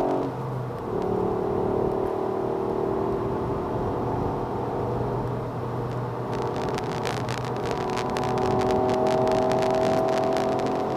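Ford Fiesta ST's 1.5-litre three-cylinder turbo engine heard from inside the cabin under hard driving. The engine pitch drops suddenly at a gear change right at the start, then climbs steadily as the car pulls through the next gear. A rapid rattle of clicks runs through the second half.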